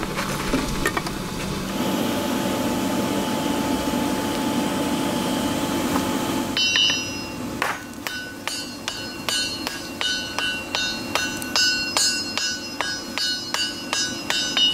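A steady motor hum runs for the first half. Then a hand hammer strikes a white-hot stacked Damascus steel billet on an anvil, forge-welding the layers together: regular blows about two a second, each with a bright ringing ping.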